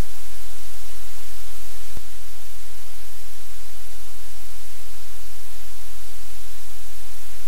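Loud, steady hiss of static with a low hum under it, from a live-cam audio feed. There is a single click about two seconds in.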